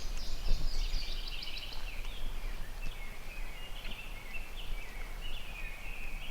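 Background birdsong: many short, high chirping notes overlapping without a break, over a low rumble of outdoor noise.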